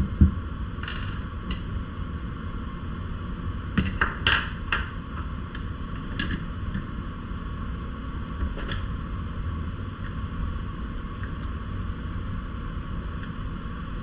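Scattered small clicks and knocks of hands handling Fox Float X air shock parts while a plastic volume spacer is fitted into the air can, over a steady low background rumble.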